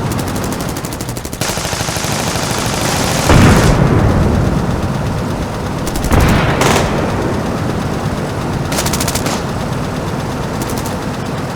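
Battle sound effects: a rapid machine-gun burst, then heavy blasts about three and six seconds in and shorter bursts of automatic fire later, over a steady low rumble.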